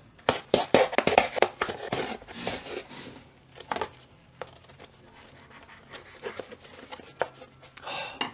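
A sheet of card handled by gloved hands on a workbench: a quick run of rustles and taps over the first three seconds, then a few scattered clicks and a short rustle near the end.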